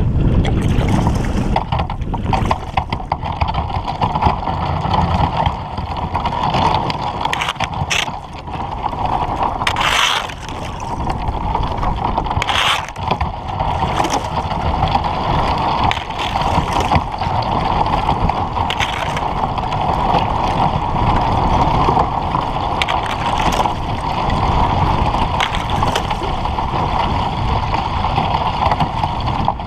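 Old Town Vapor kayak hull pushing through thin, broken lake ice, with ice fragments scraping and knocking along the hull over heavy wind rumble on the microphone. A few sharper knocks come about eight, ten and twelve seconds in.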